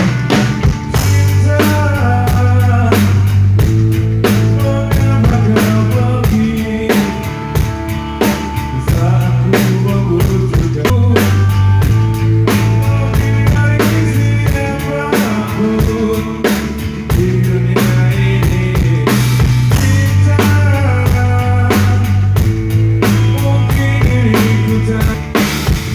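A band playing through the stage sound system during a sound check: a drum kit keeps a steady beat over low held notes that change every second or two, with higher pitched parts above.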